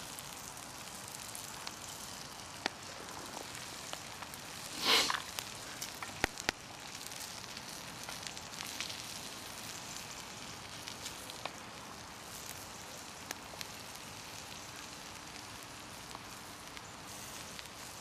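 Onions and bacon frying in butter in a steel pan over wood embers: a steady sizzle with scattered small crackles as chopped mushrooms are added, and one louder short hiss about five seconds in.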